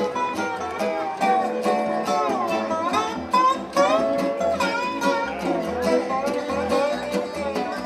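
Acoustic bluegrass string band playing: fiddle, dobro, acoustic guitar and upright bass, with notes that slide up and down.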